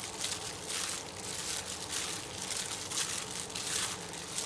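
Clear plastic disposable glove crinkling as a hand squeezes and kneads marinated pork pieces in a stainless steel bowl, working the seasoning into the meat in irregular rustles about twice a second.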